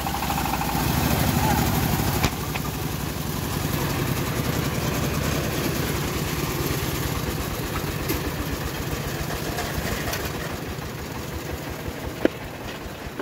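Engine of a homemade bandsaw mill running steadily with no load, its even low pulsing slowly fading, and one sharp knock near the end.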